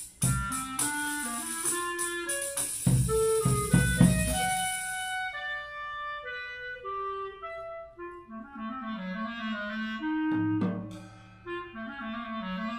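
Clarinet and drum set playing a contemporary duet: cymbal wash and low drum hits under a busy clarinet line for about the first five seconds. The drums then drop out and the clarinet carries on alone with a lower, winding line, broken by a single drum stroke about ten seconds in.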